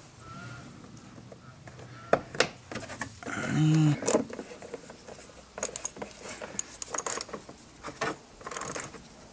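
Small metallic clicks and taps of a nut, washer and spanner as a bolt is done up through the rubber mud flap extension, sparse at first and then in quick irregular runs over the second half. A short vocal sound a few seconds in.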